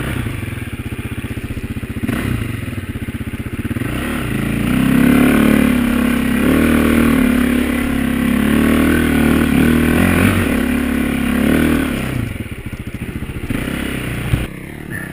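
Off-road dirt bike engine running at low revs with a fast, even firing beat, then revving up about four seconds in and holding higher, wavering revs under load on a steep climb for roughly eight seconds before dropping back. A single sharp knock near the end.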